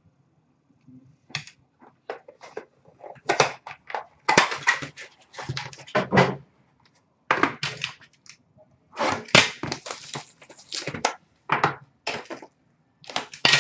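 Trading card packaging being handled and opened by hand: irregular crinkling and rustling of box and wrapper, with short sharp clicks and scrapes, in bursts with brief pauses.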